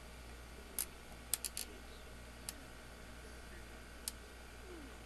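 About six sparse, sharp computer mouse clicks, three of them close together about a second and a half in, over a faint steady low hum.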